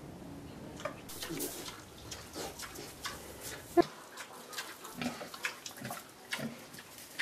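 Straw bedding rustling and crackling as a Mangalica sow and her few-day-old piglets shift about in it, with a few short, soft pig grunts in the second half and one sharp crack a little past the middle.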